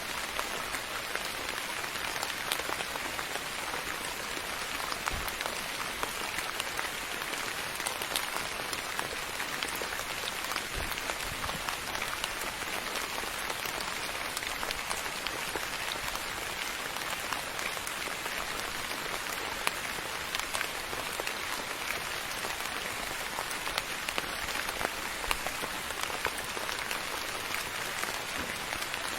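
Steady rain falling on a surface, a dense even patter with many small individual drop ticks scattered through it.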